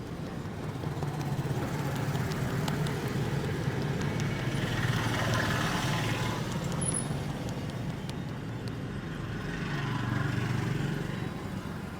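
Street traffic: a vehicle engine hum that swells and fades as traffic passes, loudest about halfway through and again near the end, with a few faint clicks.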